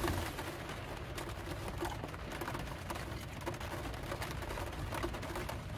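Rain pattering on a van's metal roof, heard from inside as a steady hiss scattered with irregular light ticks of drops.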